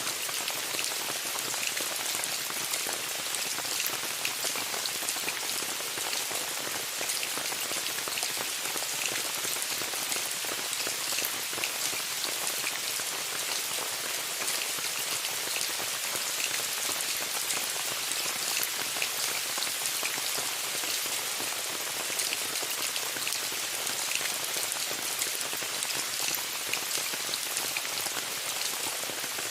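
Steady rain pattering on a tent, many fine drop ticks over an even hiss.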